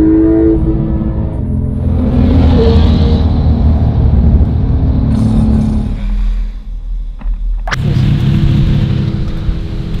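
Porsche 911 driving at speed on a country road: steady engine and road rumble. It drops away about six seconds in, then a sharp click and a different steady rumble follow.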